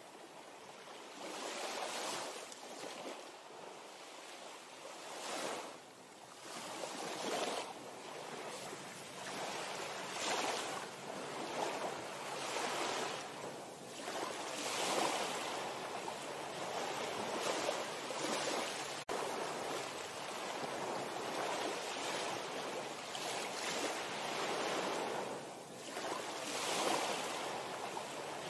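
Small waves of calm sea water lapping and washing below a wooden pier, swelling and fading every second or two.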